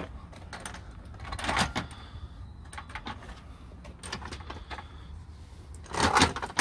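Pull-out boot drawer unit with metal runners being set down and shuffled into place on the van's boot floor: a string of knocks, clunks and scrapes, loudest about a second and a half in and again near the end, over a steady low rumble.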